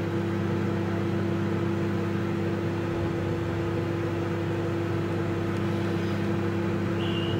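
Microwave oven running with a steady hum while heating food, and a high beep near the end.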